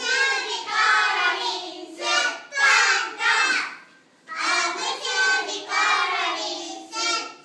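Young children singing together without accompaniment, in two phrases with a short break about four seconds in.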